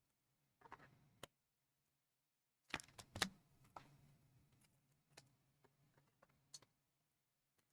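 Faint, scattered clicks and short rustles of trading-card packs and cards being handled, loudest in a brief cluster about three seconds in.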